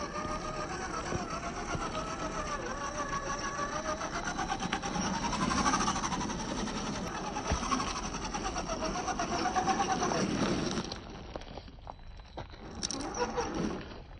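Electric motor and geared drivetrain of a 1/10-scale RC crawler whining, the pitch rising and falling with the throttle over a steady hiss. The whine drops away sharply about eleven seconds in.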